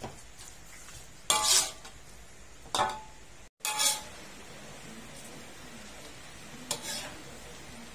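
Stir-frying in a metal pan: a cooking utensil knocks and scrapes against the pan about four times as the food is stirred, over a faint steady frying sizzle.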